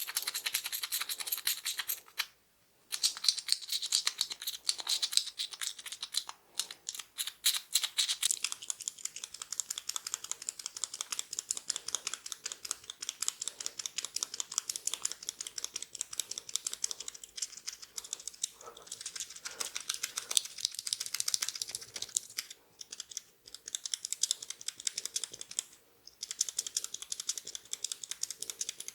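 Oily hands massaging oiled skin close to the microphone: a rapid, steady stream of wet clicks and crackles, broken by a few short pauses.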